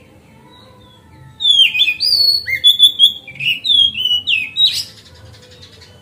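Oriental magpie-robin singing a loud phrase of rich whistled notes, mostly quick falling slurs, starting about a second and a half in and ending near the five-second mark with a harsh, rasping note. Faint chirps from other birds can be heard underneath.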